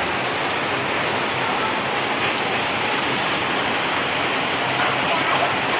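Heavy rain falling steadily: a dense, even hiss of downpour with no letup.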